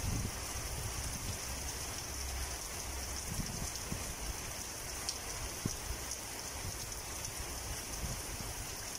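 Steady rain falling on leaves and wet ground: an even hiss with no let-up.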